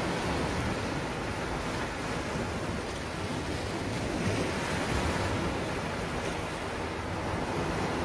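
Sea waves breaking and washing over a rocky shore: a continuous rush of surf, swelling a little about halfway through.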